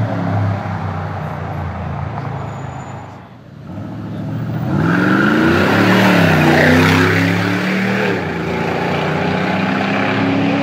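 Mansory-tuned Mercedes G500's V8 engine running as the car drives off. After a short dip, it accelerates with the revs rising and falling twice, then settles into a steady run.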